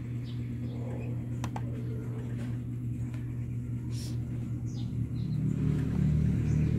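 A steady low hum that grows louder about five seconds in, with a few faint clicks.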